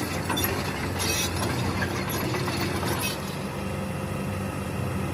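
A small machine running steadily: a low hum under a noisy hiss, with a few light clinks.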